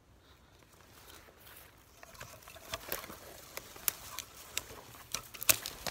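Footsteps through brush: a person walking off, with leaves rustling and twigs snapping sharply underfoot a few times, starting about two seconds in.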